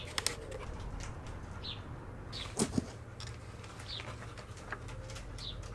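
Short, high, falling chirps repeating about every second, over a low steady hum, with a few light clicks and one louder knock a little before the middle.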